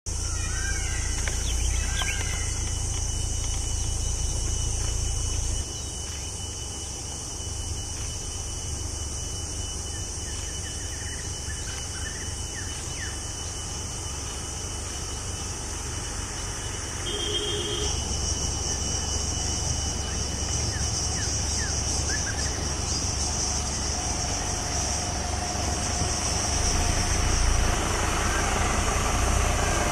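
Motorcycle engine idling with a steady low rumble, under a steady high-pitched hiss.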